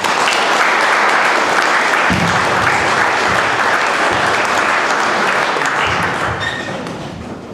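Audience applauding, a dense steady clapping that begins right away and fades gradually near the end.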